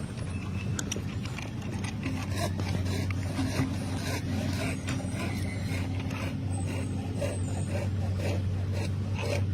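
A steady, low machine hum holds one pitch, with a second steady tone joining about two seconds in. Light clicks and knocks are scattered over it.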